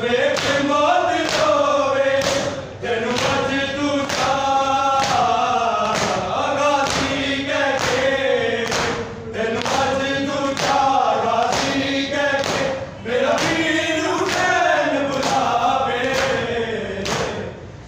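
Men chanting a Punjabi noha while mourners perform matam, slapping their chests with open hands. The sharp slaps fall in a steady rhythm with the chant.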